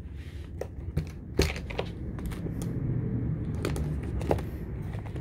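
Handling noise: a few light clicks and knocks, scattered irregularly, over a low rumble that swells in the middle and fades again.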